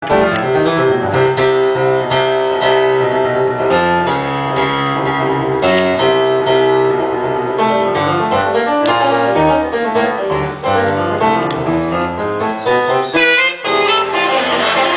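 Recorded jazz playing: piano with held saxophone notes.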